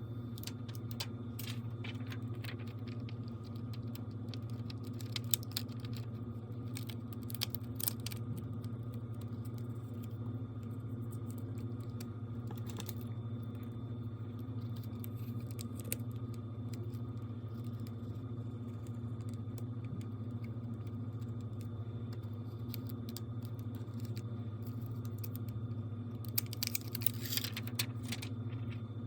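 Small, irregular clicks and taps of hand tools against a phone's parts over a steady low hum. The clicks come in a cluster in the first several seconds, sparsely in the middle, and in a quick run near the end.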